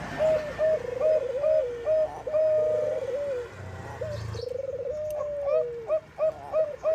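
Zebra dove (Bangkok perkutut) cooing: quick runs of short, clipped coo notes, about three a second, broken by longer rolling trills that slide down in pitch. The song thins out for about a second near the middle, then picks up again.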